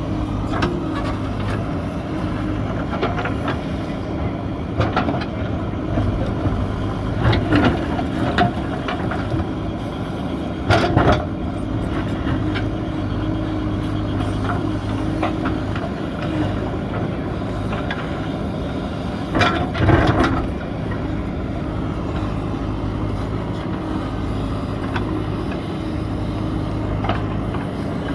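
JCB 3DX backhoe loader's diesel engine running steadily under working load, with loud bursts of clanking and crunching three times as the machine digs into the hillside.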